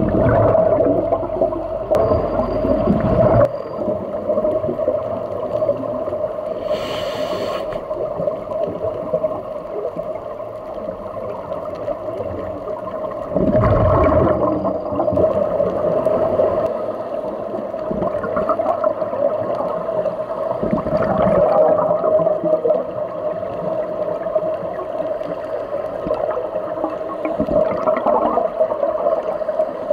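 Underwater ambience heard through an action camera's waterproof housing: a steady hum, with the muffled low rush of scuba divers' exhaled regulator bubbles coming and going every several seconds.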